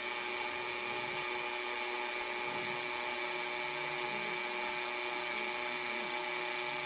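Small electric drill with a 5/64-inch cobalt bit running at a steady speed with a high whine, drilling a pilot hole into the rivet of a die-cast toy car's metal base.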